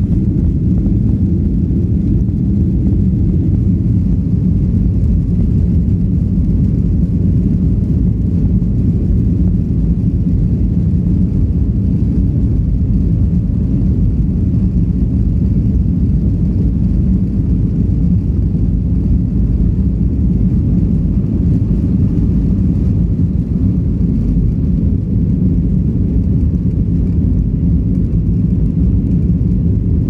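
Jet airliner's engines at takeoff power heard inside the cabin during the takeoff roll and liftoff: a loud, steady, deep rumble.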